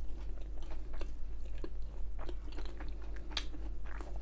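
A person chewing food with the mouth closed: soft, wet, irregular clicks and crunches of mastication, over a steady low hum.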